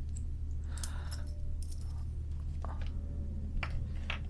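Small metal clicks and light rattles of a keychain screwdriver being handled and worked, a few sharp ticks spaced irregularly with a brief rustle about a second in, over a steady low hum.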